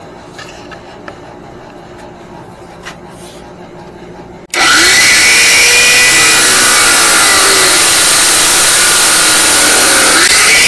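Faint handling clicks, then about four and a half seconds in a Drill Master 61204 6-inch abrasive cutoff saw comes on abruptly and very loudly. Its brushed motor runs while the fiberglass-reinforced abrasive wheel grinds through metal stock with a steady, dense hiss.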